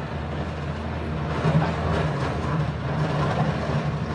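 A steady low engine hum under continuous rumbling background noise.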